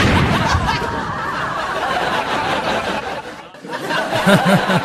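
Fading noise just after a small bomb blast, dying away by about three and a half seconds in. Near the end a man chuckles in short rising-and-falling bursts.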